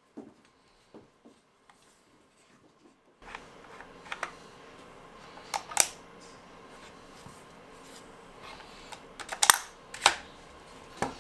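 Sharp mechanical clicks and snaps from an ARP9 gel ball blaster being handled, with its ejection-port dust cover worked by hand. There are a few faint clicks first, then clusters of louder clicks, the loudest near the end over a low steady room hiss.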